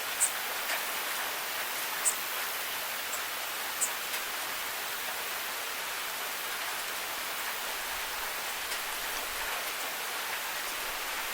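Steady rain falling: an even hiss of many drops. A few sharp, louder taps stand out in the first four seconds.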